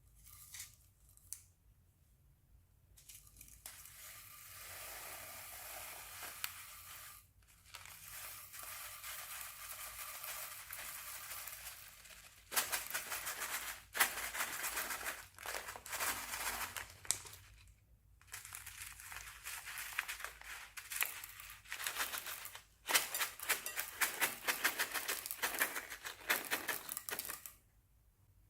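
Slime being squeezed and worked in a plastic piping bag: first a steady soft hissing squish, then, from just under halfway, dense crinkling and crackling with many small clicks, pausing briefly twice before stopping near the end.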